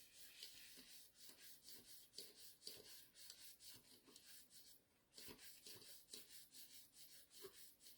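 Faint rubbing and small taps of cardstock being folded and pressed by hand as the glued sides of a paper box are pushed up to meet the edge, with a brief pause about five seconds in.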